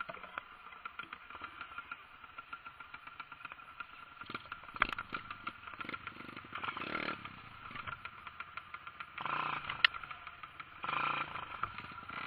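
Off-road motorcycle engine running at low revs while the bike crawls over rock, with three short bursts of throttle in the second half. A couple of sharp knocks stand out, one about five seconds in and one near ten.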